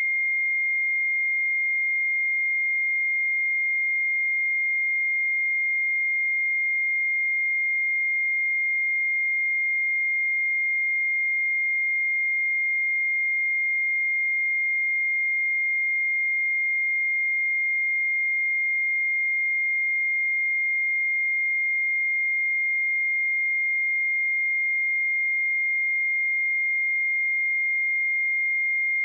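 A pure 2122 Hz sine-wave test tone, one steady high pitch held at constant loudness.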